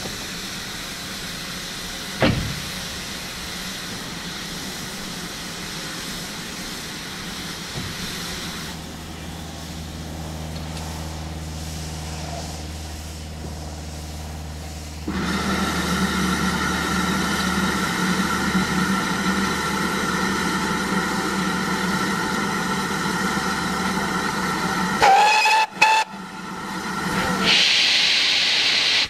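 Two standing GWR steam tank engines, 4575 Class prairie No. 5526 and pannier tank No. 9466, hissing steam. From about halfway a louder, steady rush of steam takes over. A whistle sounds briefly about three-quarters of the way in, and a sharp hiss of steam follows near the end.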